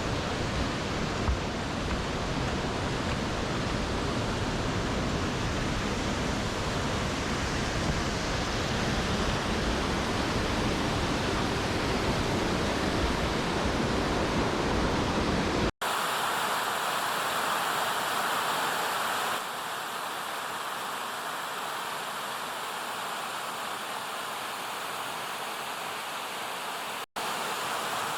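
Steady rushing water of a stream, changing abruptly in tone and level where the clips are cut, about 16 and 19 seconds in and near the end.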